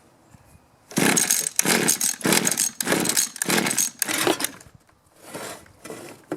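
Mantis mini tiller's two-stroke engine sputtering in a series of short uneven bursts, about two a second, then fading to weaker ones near the end. It is flooding with too much fuel and running too rich, which the owner puts down to a bad carburetor metering diaphragm.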